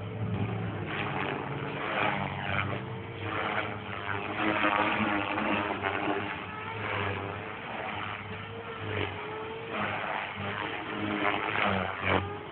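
Electric radio-controlled helicopter in flight: the whirr of its spinning rotor blades and the whine of its motor. The pitch wavers up and down and the level swells and dips as it manoeuvres.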